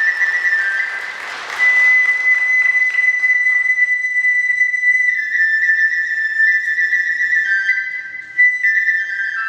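Transverse bamboo flute of the kagura ensemble playing a high, long-held melody line. Audience applause fades out in the first second or two.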